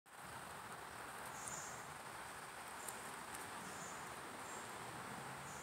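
Faint insects chirping: short, high, buzzy calls repeating irregularly about once a second over a steady hiss.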